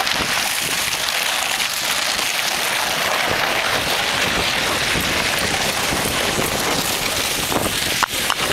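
Plastic saucer sled scraping and hissing steadily as it slides over an icy road, with a few knocks near the end.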